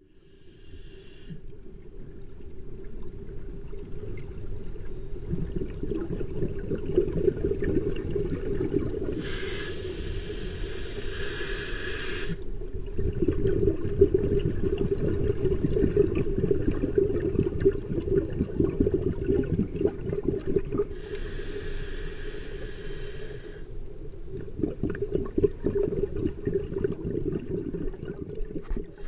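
Scuba diver breathing on a regulator, heard underwater through a camera housing: a steady rumble of crackling exhaust bubbles, broken twice by a hiss of about three seconds from the regulator.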